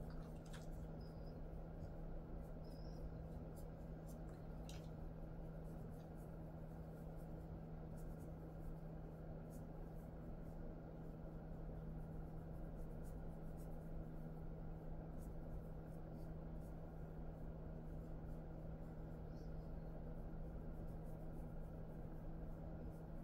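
Faint soft rustling of a hand rubbing a Jindo dog's fur in a belly and chest massage, with scattered light ticks, over a steady low hum.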